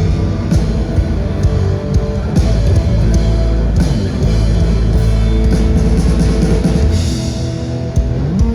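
A rock band playing live: guitar over a drum kit, with steady drum and cymbal hits under sustained bass.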